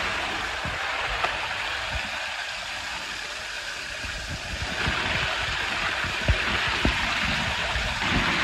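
Small waterfall pouring into a shallow stream pool, the falling water splashing over a man sitting beneath it. The rush of water grows louder about halfway through, with a few sharp splashes.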